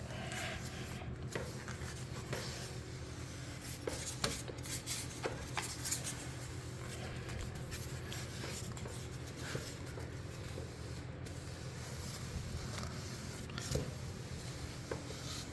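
An applicator rubbing and scraping along wooden stair treads as a first coat of polyurethane finish is spread, with scattered light clicks and knocks over a steady low hum.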